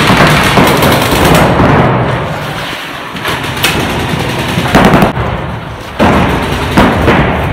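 Paintball markers firing rapid strings of shots: a dense volley for the first second and a half, then shorter bursts with brief pauses between them.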